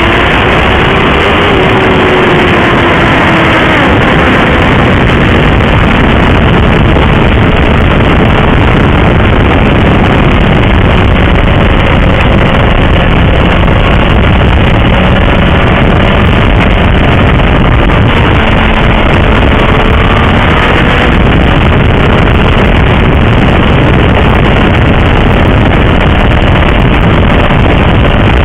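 Honda CBR1000RR's inline-four engine running at cruising speed on the road, under heavy wind noise on the bike-mounted microphone. The engine note falls slightly in the first few seconds, then holds steady.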